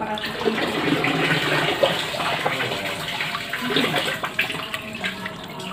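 A crowd of live catfish thrashing in a plastic basin of water: a continuous churning slosh broken by many small, sharp splashes.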